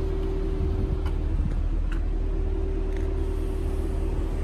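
2020 Chevrolet Camaro LT1's 6.2-litre V8 idling with a steady low rumble and hum. A few faint clicks sound over it.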